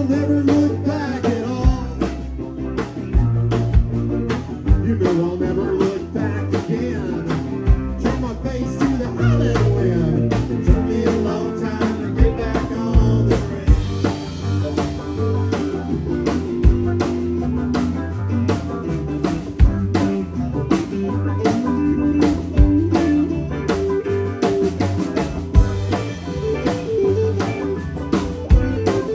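Live rock band playing a song, with electric and acoustic guitars, electric bass and a drum kit keeping a steady beat.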